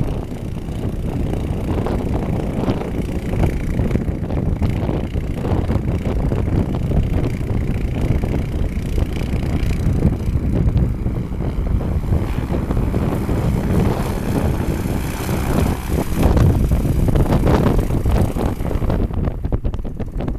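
Airboat propeller engine running steadily, with heavy wind buffeting on the microphone.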